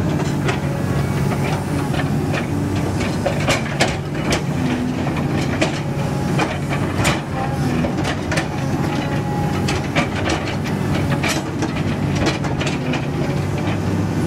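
CAT 320D excavator's six-cylinder diesel engine running steadily while its steel bucket scrapes through loose broken rock and gravel. Frequent sharp clanks and stone knocks throughout.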